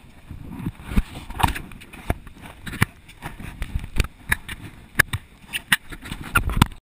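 Handling noise of a small action camera held in the hand: a run of irregular sharp knocks and scrapes against its case over low rumbling, cutting off suddenly near the end.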